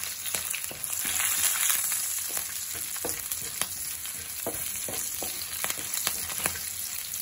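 Chana dal, cumin seeds and green chillies sizzling in hot oil and ghee in a nonstick frying pan, the tempering for upma, stirred with a wooden spatula. A steady hiss runs under scattered short taps and scrapes.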